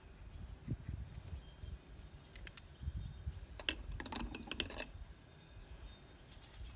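A quick run of light clicks and taps that starts a little past two seconds in and is densest around the fourth second, over a steady low rumble.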